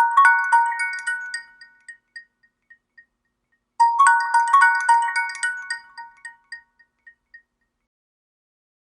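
HTC DROID Incredible 4G LTE ringtone: a short, bright phrase of bell-like mallet notes that trails off in fading echoes, heard twice, the second time about four seconds in.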